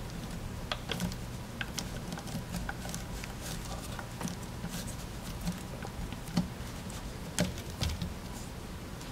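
Fingers pressing and squishing Play-Doh into the molds of a plastic Hulk toy figure, with irregular small clicks and taps of fingers and nails against the plastic. The sharpest taps come about six and seven seconds in.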